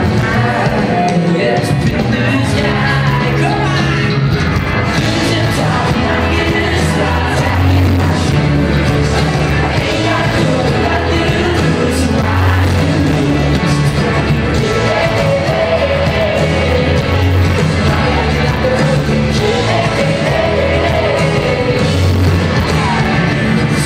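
Pop-rock band performing live, with lead singing over acoustic and electric guitars, drums and keyboard.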